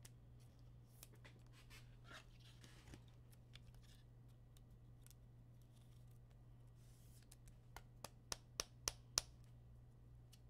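Near silence with a steady low electrical hum and a few faint ticks, then a quick run of about six light, sharp clicks close together near the end, the last the loudest.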